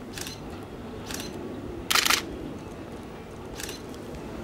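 Camera shutters clicking about four times, the loudest a short rattling burst about two seconds in. Under them is the low steady rumble of the slowly approaching Tobu 10030-series electric train.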